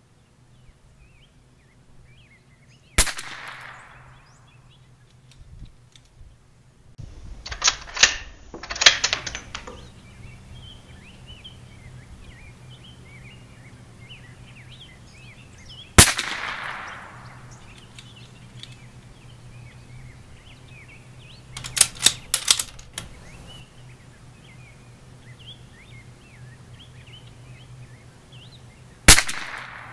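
Three single shots from a Bergara B14R .22 LR bolt-action rifle, spaced about thirteen seconds apart, each a sharp crack with a short echoing tail. Between the first and second and the second and third shots come quick runs of four or five sharp clicks.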